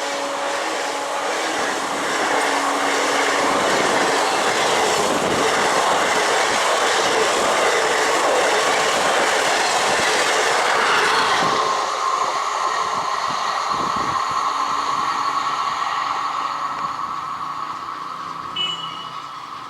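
A train passing close by: a loud rush of wheels on rails for about twelve seconds, then the noise drops and a steady high whine carries on as it fades away.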